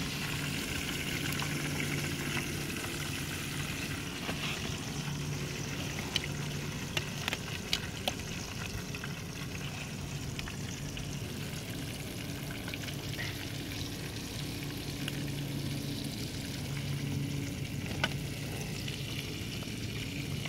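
Battered fish frying in a pan of hot oil on a portable camp stove, sizzling steadily. A handful of sharp clicks about a third of the way in and one more near the end.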